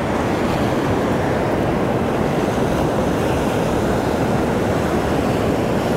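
Ocean surf breaking and washing steadily onto the beach, with wind buffeting the microphone.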